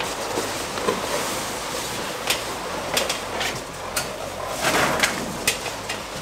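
Latex balloons of a large balloon garland rubbing and rustling against each other as it is lifted and hung up, with several sharp clicks and a louder rustle about two-thirds of the way through.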